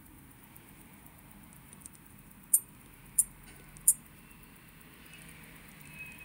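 Three sharp, high clicks about two-thirds of a second apart, with a few fainter ticks around them, as the small parts of a mechanical watch movement and its perpetual-calendar module are handled and fitted.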